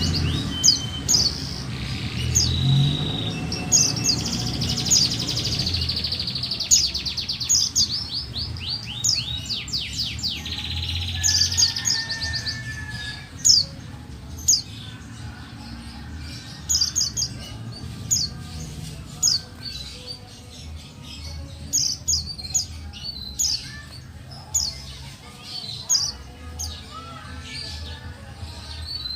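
Female white-eye (the 'pleci buxtoni' type) calling. It starts with a fast, dense run of high chirps and trills for about the first twelve seconds, then gives sharp single high chirps about once a second.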